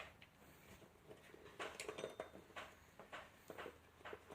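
Faint, irregular scraping and clicking of a tyre lever working a stubborn BMX tyre's bead off the rim.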